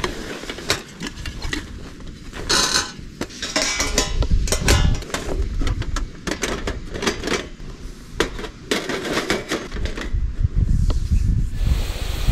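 Dishes and utensils clinking and knocking in an irregular run of sharp clicks, over a low rumble.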